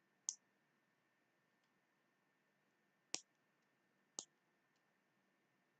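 Three short, sharp computer mouse clicks, the first just after the start and the other two about three and four seconds in, against near silence.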